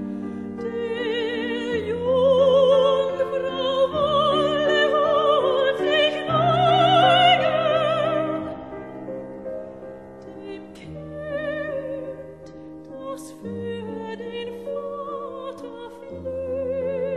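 Slow classical-style background music: a melody with heavy vibrato over sustained chords that change every two seconds or so, swelling louder in the first half.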